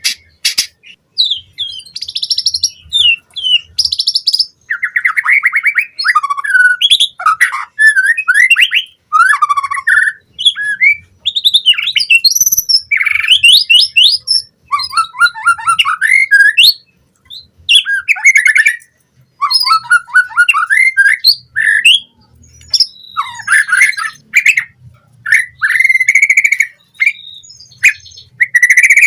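White-rumped shama (murai batu) singing: a loud, fast, varied run of whistles, trills and chirps in phrases of one to a few seconds with short pauses, packed with imitated calls of other birds.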